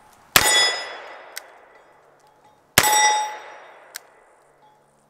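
Two single-action shots from a .357 Magnum Colt Python revolver, about two and a half seconds apart. Each is followed by a ringing that fades over a second or so, and a sharp click comes about a second after each shot as the hammer is cocked for the next.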